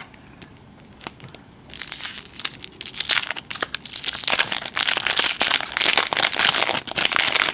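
Foil wrapper of a 1991 Topps Stadium Club baseball card pack being torn open and crinkled by hand. The crinkling starts about two seconds in and goes on as a dense run.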